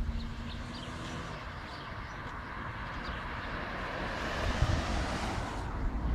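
A car driving past on the street, its noise building to a peak about four to five seconds in and then fading.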